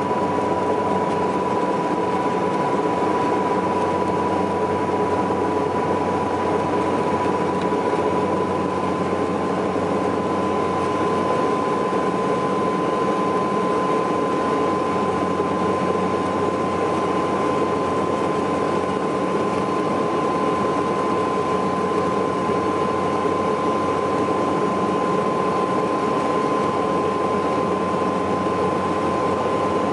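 Saab 340B's General Electric CT7 turboprop engines heard from inside the cabin during the descent to landing: a steady low propeller hum under a high whine held on one pitch, which edges up slightly about nine seconds in.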